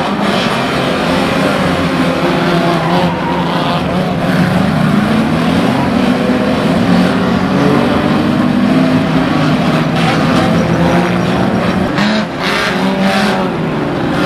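Several banger-racing cars' engines revving hard together, with tyres skidding on the track surface; a few sharp knocks near the end.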